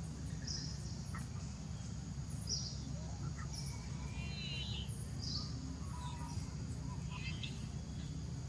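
Forest ambience: birds giving short, high chirps every couple of seconds, with a quick run of call notes about four seconds in, over a steady low rumble.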